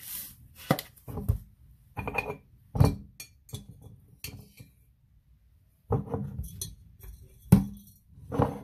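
Irregular clinks and knocks of spice containers being handled and set down while raw chicken pieces in a bowl are seasoned, about a dozen in all.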